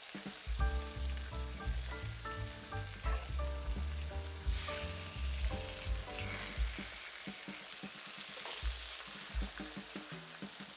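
Thin-sliced chicken breast sizzling in hot butter and olive oil as more pieces are laid into the pan, the sizzle flaring briefly twice midway. Background music with a steady bass plays through the first part.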